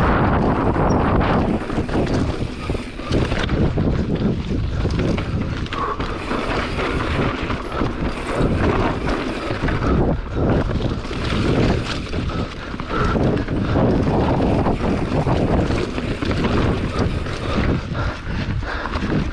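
Enduro motorcycle running hard along a trail, its engine rising and falling under heavy wind buffeting on the microphone, with many short knocks and rattles from the bumps.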